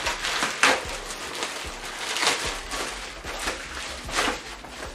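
Plastic courier mailer bag being torn open by hand: crinkling and ripping noises in uneven strokes, with a few louder rips.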